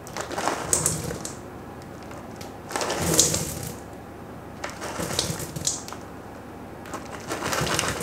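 A crinkly plastic packet of chocolate chips being shaken over a steel mixing bowl in four bursts about two seconds apart: the packet crackles and the chips patter out into the bowl.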